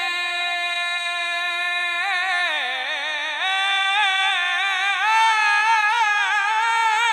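A man singing an Urdu naat, with no instruments heard, into a microphone. He holds a long steady note for about two seconds, breaks into quick ornamental turns that dip in pitch, then climbs to a slightly higher, wavering held note.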